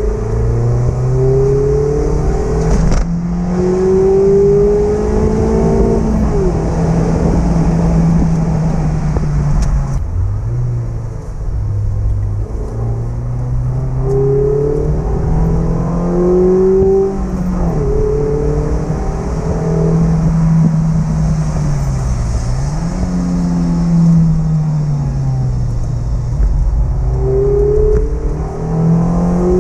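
Mazda MX-5 ND's 1.5-litre naturally aspirated four-cylinder engine, on its stock exhaust, pulling hard. Its pitch climbs for several seconds under acceleration and drops at each gear change, over and over.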